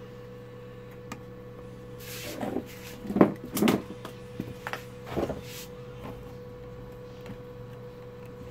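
A screwdriver scrapes and knocks against a screw and the sheet-metal heatsink bracket of a CRT TV power-supply board. A cluster of short scrapes and clicks comes in the middle, over a steady background hum.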